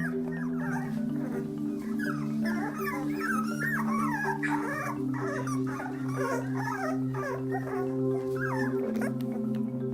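Two-and-a-half-week-old puppies whining and squealing, many short wavering cries overlapping, thickest a few seconds in, over background music with long held notes.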